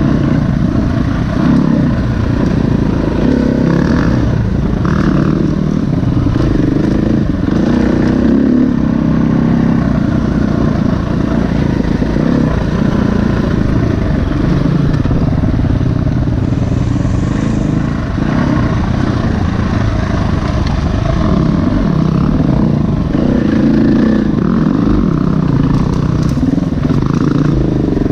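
A 350 cc dirt bike's engine running under constantly changing throttle while riding rough single track, heard from on the bike, its pitch rising and falling with the terrain.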